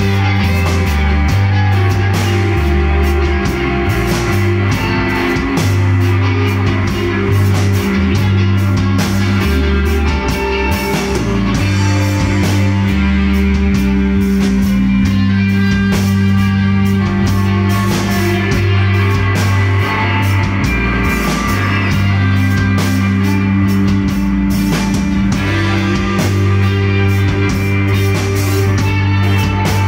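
Rock band playing live: several electric guitars over bass notes and a drum kit, loud and continuous.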